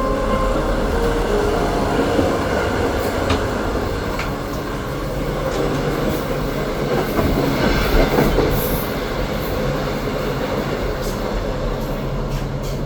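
GoldenPass Express train running along the rails: a steady rumble with a few sharp clicks from the wheels and track.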